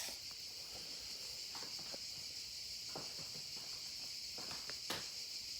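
A few soft, scattered footsteps on pavement over a steady high-pitched background hiss.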